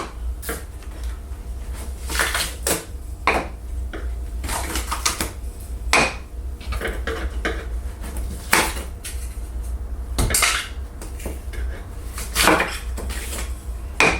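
Wooden CNC-cut pieces being handled and set down, knocking and clattering against each other and the work surface in irregular knocks, with a few short scraping strokes.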